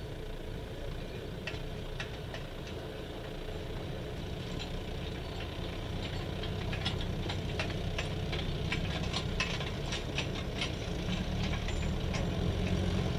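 Several military light utility vehicles idling together, a steady low engine rumble that grows somewhat louder in the second half, with scattered light clicks and rattles over it.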